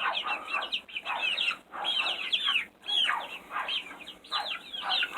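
A flock of chickens clucking and calling, with many short overlapping calls coming in bunches and brief lulls between them.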